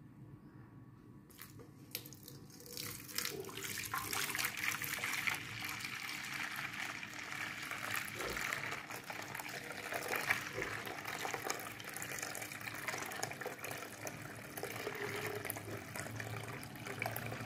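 Cloudy water being poured slowly off settled wheat starch, from one steel vessel into another: a steady pouring and splashing that begins about three seconds in. The cloudy top water is being drained off so that the starch left below can go on to make kurdai.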